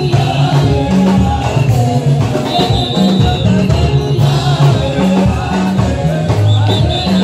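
Gospel praise-and-worship music: a congregation singing along over a stepping bass line and quick, steady percussion.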